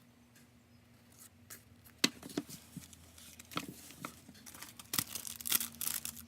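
Paper and packaging being handled: rustling and crinkling with sharp clicks, starting about two seconds in after a quiet start.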